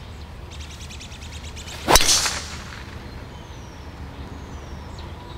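Golf club striking a ball off the tee on a par-four tee shot: one sharp crack about two seconds in, with a brief bright ring after it.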